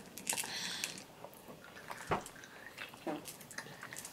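Quiet handling sounds as children pick small hard candy balls out of a palm: scattered light clicks and rustles, with one sharper thump about two seconds in.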